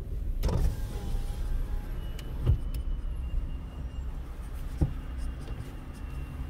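Ford car's engine and road noise heard from inside the cabin as the car rolls slowly forward, a steady low rumble with three short dull knocks.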